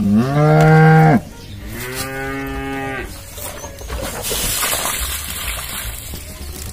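A cow mooing twice: a loud call that rises and holds for about a second, then a second, lower call about a second later. A hiss follows near the end.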